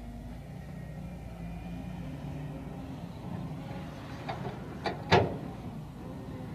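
A vehicle engine running steadily with a low rumble, with three sharp knocks a little past four seconds in, the last one the loudest.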